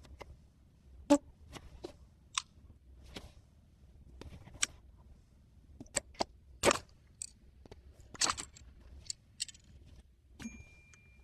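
Small tools and phone parts being handled during a smartphone repair: scattered sharp clicks, taps and short scrapes at irregular intervals, with a faint steady high tone starting near the end.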